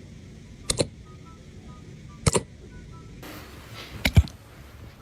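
Puppy hiccuping: three short, sharp hiccups about a second and a half apart, each a quick double catch.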